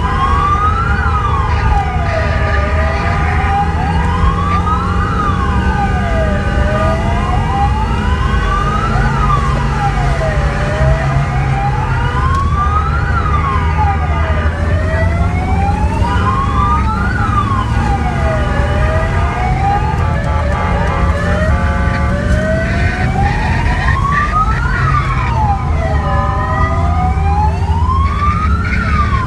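Emergency vehicle siren wailing on a fire run, rising and falling about every four seconds, with steady held tones alongside. Engine and road noise are heard from inside a moving vehicle.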